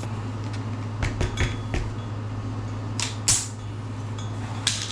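Tubeless mountain bike tire being pumped up to pressure to make sure the bead is fully seated: a few light clicks and knocks, then a short burst of air hiss about three seconds in, over a steady low hum.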